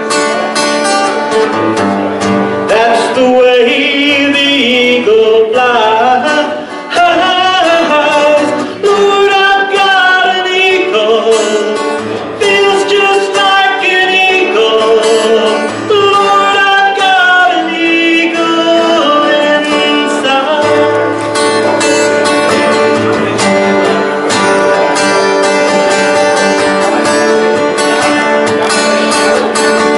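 Acoustic guitar strummed along with a man's singing voice carrying a melody; after about 17 seconds the voice drops out and the guitar goes on alone.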